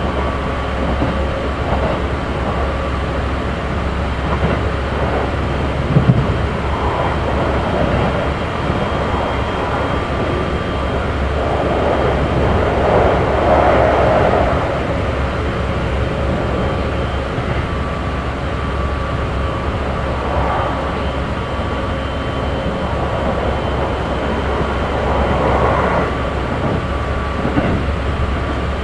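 Interior running sound of a Keikyu 1500 series motor car with Mitsubishi GTO-VVVF inverter equipment, travelling between stations: a steady rumble of wheels on rail with a few faint steady tones above it. It swells louder a few times, most strongly around the middle, with a single short knock early on.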